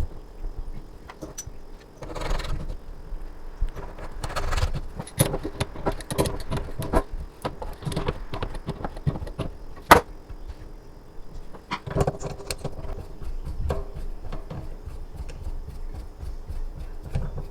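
Metal faucet parts and tools clinking and clattering as they are handled, with many small irregular clicks and a sharp knock about ten seconds in.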